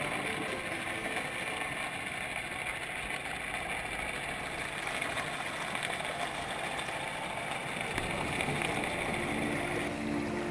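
Steady underwater noise picked up by a camera in a dive housing, with the drone of a boat engine carried through the water.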